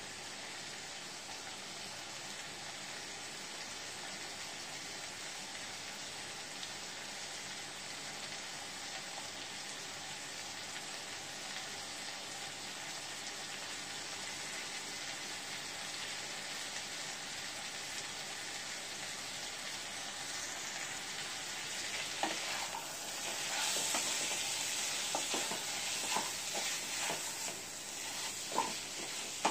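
Goat mutton pieces sizzling steadily as they are dry-fried in spiced masala in a nonstick wok, with no water added. In the last several seconds a wooden spatula stirs the meat, adding irregular knocks and scrapes against the pan over a louder sizzle.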